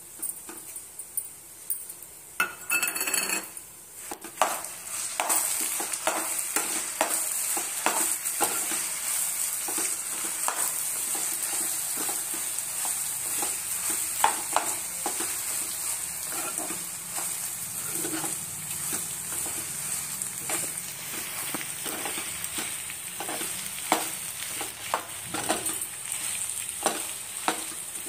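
Gongura and spinach leaves with tempering frying in oil in a non-stick kadai, sizzling steadily, while a steel spoon stirs them and clicks and scrapes against the pan. The sizzle gets louder about four seconds in.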